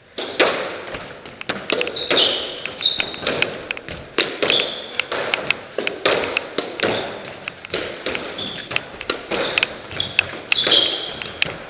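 Squash rally: the ball smacking off rackets, the walls and the floor in quick succession, with court shoes squeaking on the floor in short high chirps between hits.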